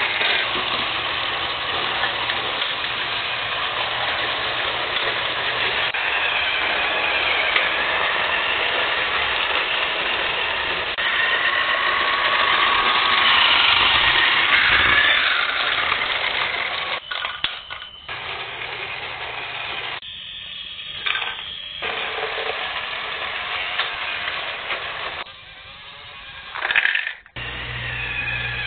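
Small electric motors and plastic gears of Rokenbok toys whirring and rattling, with a whine that rises and falls in pitch. The sound drops out abruptly a few times in the second half.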